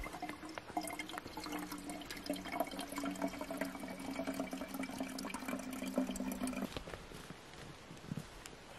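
Water pouring from a soft plastic pouch into a narrow-mouthed bottle, a steady filling trickle that stops about seven seconds in.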